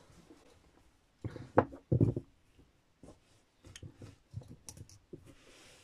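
A crocheted shawl being handled and smoothed flat on a table by hand: soft fabric rustling with a few dull thumps about a second or two in, then light scattered clicks and rustles.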